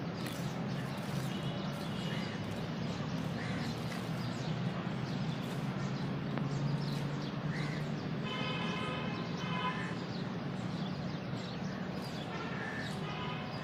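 Steady low hum of outdoor station ambience with short bird calls every second or two. About eight seconds in and again near the end comes a longer held sound with several stacked tones.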